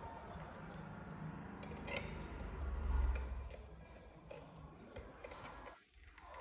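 Scattered light clicks and taps of hard plastic as a baby monkey handles and mouths the parts of a plastic toy tricycle, with a low thump about three seconds in.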